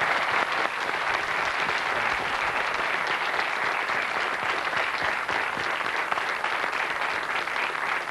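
Studio audience applauding, a steady sustained round of clapping.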